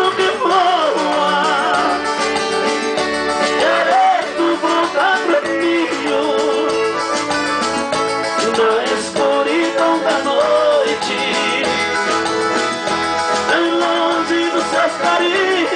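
Live music over a PA: a man singing a romantic Brazilian song with vibrato, accompanied on an electronic keyboard.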